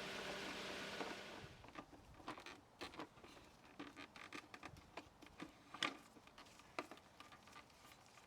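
Scattered light clicks and taps of hands working on the motorcycle's plastic fairing parts and electrical connectors. A steady hiss with a faint hum fades out about a second in.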